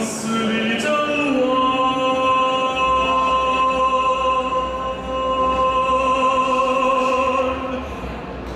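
Operatic solo singing by a woman's voice: a few short stepping notes, then one long note held with vibrato for about six seconds, fading near the end. A low steady drone comes in underneath about three seconds in.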